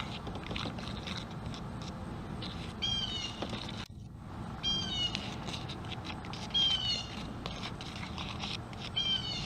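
A small animal's high call with a falling pitch, repeated four times about every two seconds, over faint clicking.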